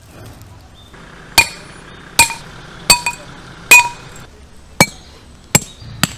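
About eight sharp metallic strikes at irregular intervals, roughly one every half to one second, each ringing briefly; the first and the fourth are the loudest.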